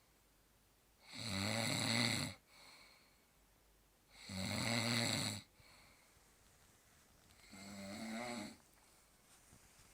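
A man snoring: three long snoring inhalations about three seconds apart, the third one quieter, each followed by a short soft exhale.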